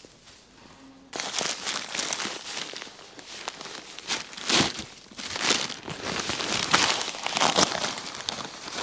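Paper feed sacks of minerals crinkling, rustling and tearing as they are handled and emptied, in a run of irregular scrapes that starts about a second in.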